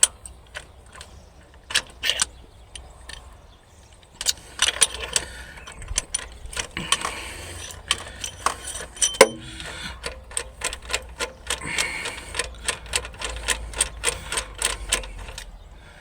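Hand tools at work on a car engine: runs of ratchet-wrench clicks and scattered metallic clicks and knocks, while working at the spark plug of cylinder 3.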